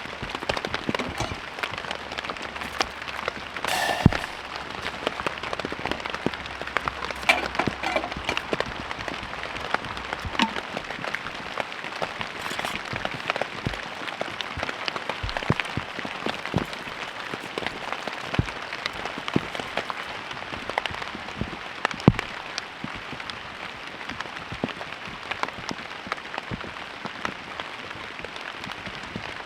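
Pouring rain falling steadily, with many sharp close drip hits; a louder knock about four seconds in.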